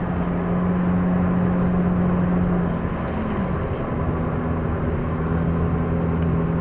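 Car cabin noise while driving: a steady engine and road hum with a low drone that wavers briefly about three seconds in before settling again.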